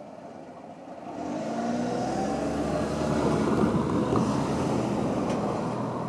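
Cars driving past close by: engine and tyre noise that builds from about a second in as a minivan approaches and stays up to the end.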